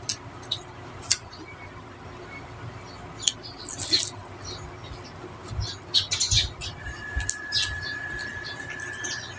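Close-miked eating by hand: wet lip smacks and chewing clicks on a fried spring roll and rice, with a few low thumps about six seconds in. A faint steady high tone joins about seven seconds in.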